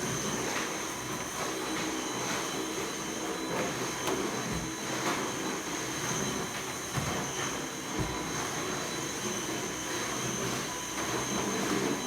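Household vacuum cleaner running steadily, a constant high whine over a rushing hum, with a few faint clicks.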